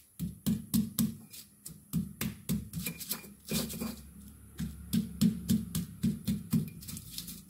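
Stone pestle (ulekan) pounding and grinding shallots, garlic and candlenuts in a volcanic-stone mortar (cobek), a dull knock about three times a second as the spice paste is crushed coarsely.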